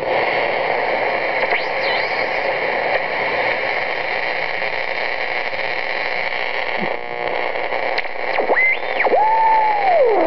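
Shortwave static and hiss from a Sproutie homebrew regenerative receiver as its dial is tuned upward through the 60-metre band. Near the end come whistling tones that slide up and then down in pitch: heterodyne squeals as the regen tunes across station carriers.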